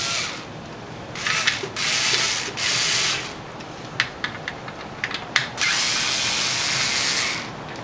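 A power driver spinning out two 5/16-inch bolts at a washing machine's motor in several short bursts, with a longer run near the end. There is a scatter of sharp clicks and taps from the tool and bolts in between.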